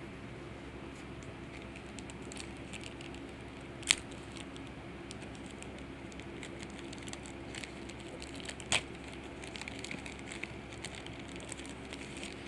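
A foil Yu-Gi-Oh booster pack wrapper being worked open by hand: light crinkling and crackling, with two sharp snaps about four and nine seconds in.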